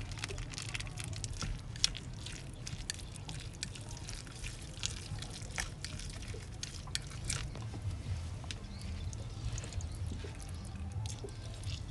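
Pot of liquid simmering: irregular small bubbling pops and drips over a low steady hum.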